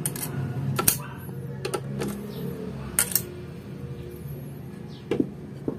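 Sharp metal clicks and taps, a few scattered ones, as small steel screws are handled and dropped onto the stand mixer's metal gear plate during its disassembly.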